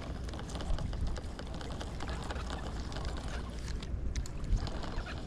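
Spinning reel being cranked by hand, its gears giving a fast, even clicking as new line winds onto the spool.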